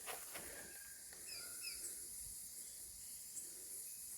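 Quiet bush ambience: a steady high hiss, with two short, quick bird chirps about a second in and a few faint knocks at the very start.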